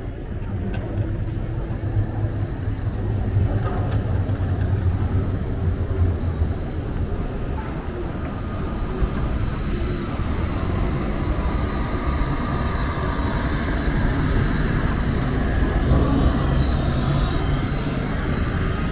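City street traffic, with a heavy vehicle's engine running close by in a steady low hum that is strongest in the first half and again near the end.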